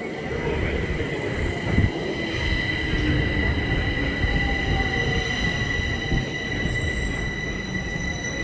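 Bombardier metro train running through the station: a steady low rumble with a steady high whine, and a sharp knock about two seconds in.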